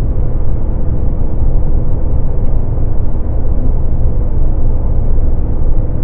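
Mercedes-Benz car cruising at highway speed, heard from inside the cabin: steady deep road and tyre noise with a faint even hum.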